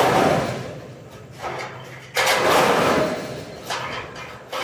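Light-gauge steel roofing sections clattering and banging as they are handled: three sudden metallic crashes, at the start, about two seconds in and at the very end, each one rattling away over a second or so.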